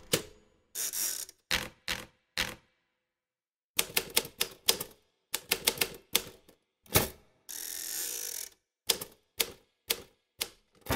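Typing: a run of sharp, irregular keystrokes, with a pause of about a second near three seconds in and a steady noise lasting about a second near eight seconds in.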